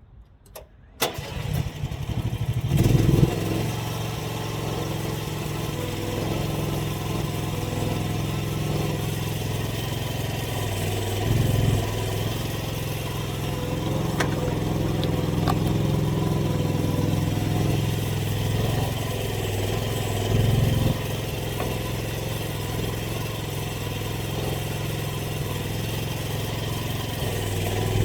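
AGT mini excavator's small gasoline engine cranking and catching about a second in, then running steadily, swelling briefly a few times.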